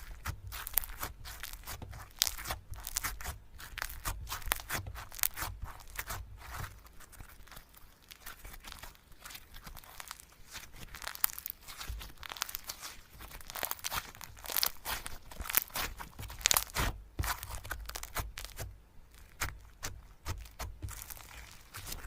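Slime being squeezed and worked by hand, giving a dense, irregular run of sticky crackles and pops.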